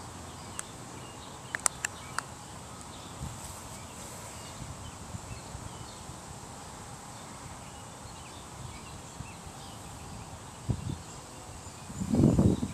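Outdoor background: a steady faint hiss with a thin, high, steady insect-like tone. A few sharp clicks come about two seconds in. Loud low rumbling bumps on the microphone start near the end.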